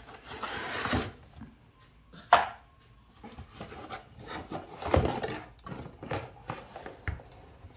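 Cardboard packaging and plastic juicer parts being handled while unboxing: rustling and scraping of cardboard, one sharp louder knock a little over two seconds in, then scattered bumps and scrapes as the parts are lifted out of the box.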